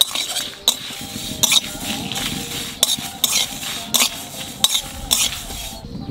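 A spatula stirring dried red chillies and whole fennel, cumin and fenugreek seeds around an aluminium kadai as they dry-roast, the seeds rattling and scraping against the pan in repeated strokes about every half-second to second.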